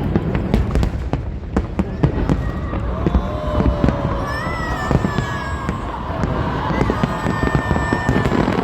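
Fireworks display going off: a dense, irregular run of bangs and crackling pops.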